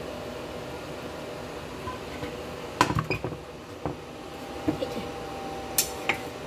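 Spatula scraping and clinking against a nonstick frying pan as stir-fried vegetables are pushed out onto a plate: a quick cluster of knocks about three seconds in, then a few single clinks, over a steady background hum.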